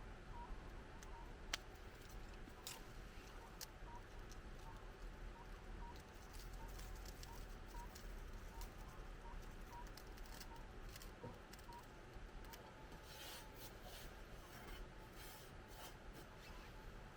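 Burning firewood crackling faintly, with scattered sharp pops. One louder pop comes about a second and a half in, and a denser run of crackles comes near the end.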